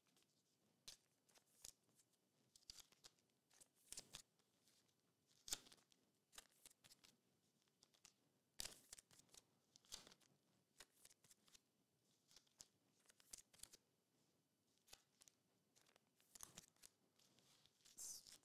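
Faint, irregular rustles and clicks of trading cards and clear plastic card sleeves and holders being handled and slid together on a table.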